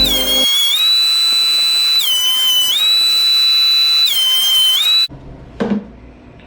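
Background music: a high, whistle-like synth tone with a bright edge, stepping down to a lower note and back up about every two seconds, then stopping suddenly about five seconds in. A single short knock follows near the end.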